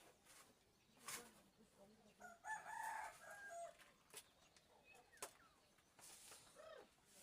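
A rooster crowing once, faintly, starting about two and a half seconds in and lasting about a second and a half. A few sharp clicks sound around it.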